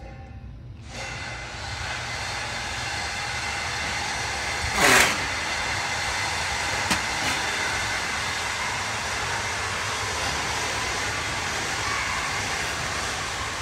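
Steady, loud hissing noise that sets in about a second in, with a brief loud burst falling in pitch about five seconds in and a sharp click about two seconds later.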